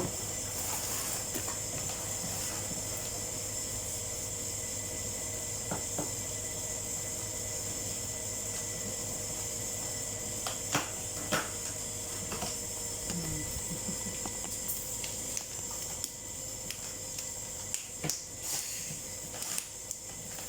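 Steady background hiss and hum, with a few scattered sharp clicks and knocks.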